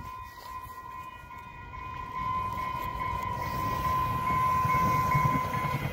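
Commuter train approaching with its cab car leading, a low rumble that grows steadily louder from about two seconds in, with a fast low rhythm near the end. Under it, a steady high ringing tone from the level-crossing warning signal.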